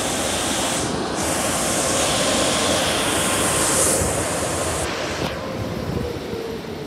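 Automatic car wash running with a car in the bay: a loud, steady rushing hiss of spray or blowers, with a faint steady hum beneath. The hiss drops back about five seconds in.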